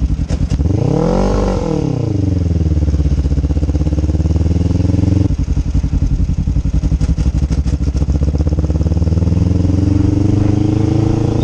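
Motorcycle engine heard from the rider's seat while riding: it revs up and falls back about a second in. It then runs steadily, its pitch slowly climbing as the bike accelerates.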